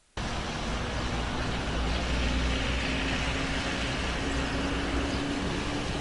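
Steady roadside traffic noise on a wet street, with a low rumble and a faint engine hum that slowly rises in pitch.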